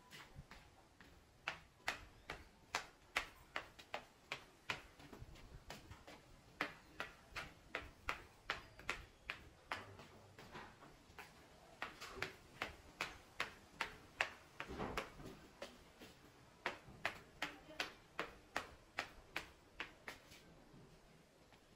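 Footsteps on a hard tiled floor at a steady walking pace, about two and a half sharp steps a second, with a few short pauses.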